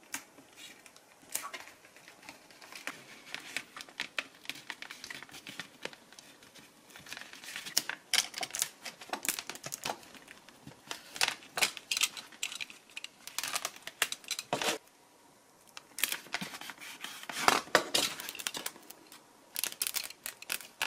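Hands working on a polystyrene-foam RC wing at its servo bay: irregular crinkling, scraping and sharp small clicks as tape is handled, a servo lead is pressed into a slot in the foam, and a snap-off utility knife trims the foam near the end. There is a short lull about fifteen seconds in.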